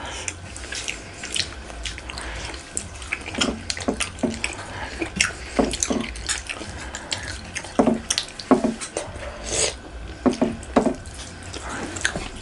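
Close-miked wet eating sounds: irregular lip smacks, chewing and the squelch of fingers mixing rice and fish curry by hand, heard as scattered short clicks.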